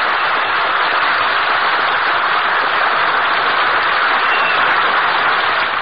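Studio audience applauding steadily after a comedy punchline, heard on a 1940s radio broadcast recording with the treble cut off. The applause dies down near the end.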